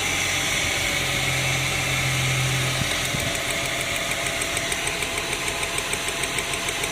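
Ford Falcon BF engine idling steadily, then about three seconds in it turns rough and uneven as one ignition coil is lifted off its plug and that cylinder stops firing, with a fast ticking running through it. The engine stumbling like this shows the pulled coil was doing its job.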